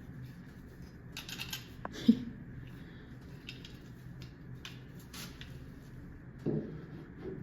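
Scattered short scrapes and clicks of hand tools working on a wooden door where holes for the lock are being cut, with one sharp click about two seconds in and a couple of duller knocks near the end.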